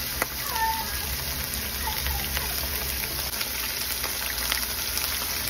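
Thin chicken breast fillet sizzling steadily in a frying pan on a gas stove, with small scattered crackles.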